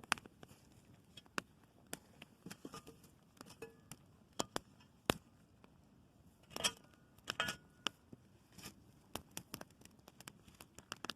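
Wood campfire crackling, with irregular sharp pops and snaps scattered throughout and a couple of louder hissing crackles about two-thirds of the way in.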